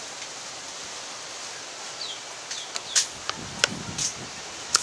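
Steady outdoor hiss of wind and rustling leaves. From about two seconds in comes a quick run of sharp clicks and taps as a small spice mill and tableware are handled.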